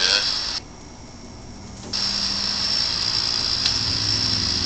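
Steady electronic hiss with a thin high whine and a low hum: the noise floor of an EVP recording being played back. It cuts out sharply about half a second in and comes back about a second and a half later.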